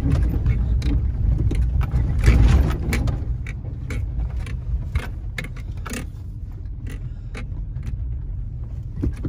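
Inside a vehicle crawling over a rough, rutted dirt road: a steady low engine and tyre rumble with frequent sharp clicks and rattles as it jolts over rocks and ruts, easing off after about three seconds.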